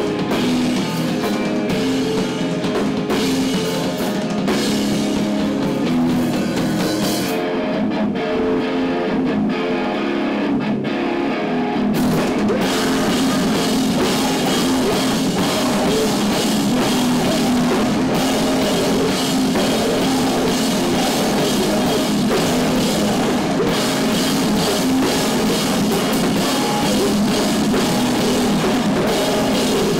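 Rock band playing live: distorted electric guitars over a drum kit. The cymbals drop out for several seconds partway through, then the full band comes back in a little louder about twelve seconds in.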